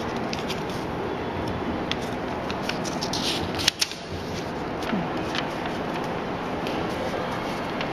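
A sheet of white paper being handled and rustled, with scattered crisp crinkles and clicks that are loudest and densest about three and a half seconds in. A steady room hiss runs underneath.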